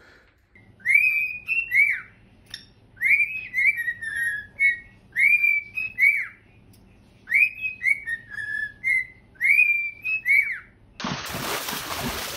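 Cockatiel whistling a short tune: phrases of rising-and-falling notes, repeated about every two seconds, five times. Near the end, loud splashing water cuts in.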